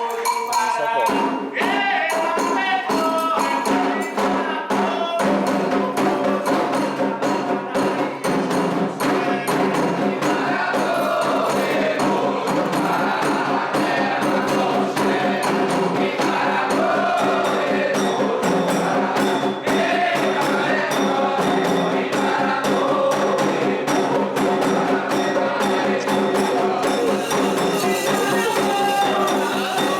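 Candomblé ritual music: a group of voices singing a chant in phrases over steady, fast hand percussion and a struck rhythm instrument.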